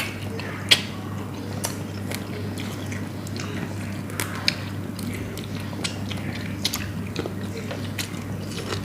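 People eating grilled chicken wings and drumsticks: biting and chewing, with scattered sharp clicks, over a steady low hum.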